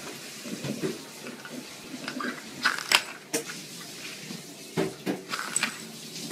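Small plastic lids knocked and slid across a wooden floor by a kitten's paw: light clacks, bunched a little before halfway and again about three-quarters through.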